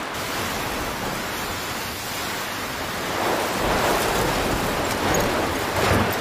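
Heavy rain pouring down with gusting wind in a thunderstorm, a steady rush of noise that swells about three seconds in.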